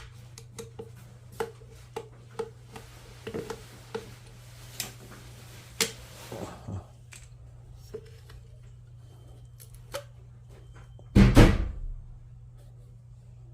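Scattered clicks and knocks of hard plastic parts being handled as a washing machine drain pump is opened up, with one louder clatter about eleven seconds in, over a steady low hum.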